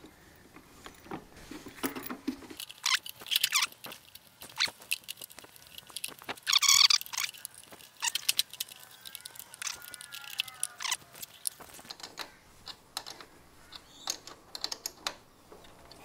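Hand tools and metal parts being handled while a battery and its clamp are fitted into a ride-on mower: scattered clicks and knocks, a louder metallic rattle about seven seconds in, and a short squeak about ten seconds in.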